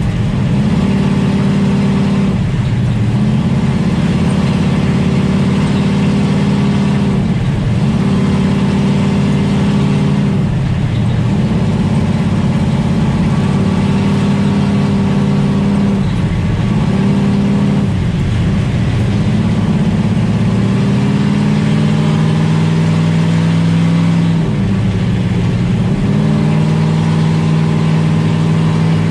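Plymouth Duster lead sled race car's engine heard from inside the stripped cockpit, held at high revs and dipping briefly several times, every few seconds, as the throttle is lifted for each turn of the oval.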